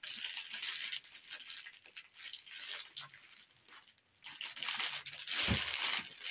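Plastic packaging bags rustling and crinkling in the hands as they are pulled from a cardboard box, in irregular bursts with a lull a little past the middle and a short bump near the end.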